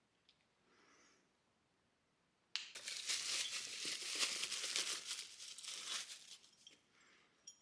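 Plastic packaging bag crinkling and rustling as a small part is unwrapped. There is a faint rustle about a second in, then loud crinkling starts suddenly and runs for about four seconds before it dies down to light rustles.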